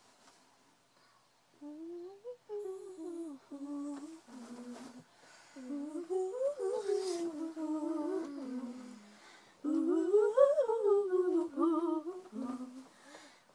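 A girl humming a tune in short melodic phrases with brief pauses between them, starting a couple of seconds in and growing louder from about ten seconds in.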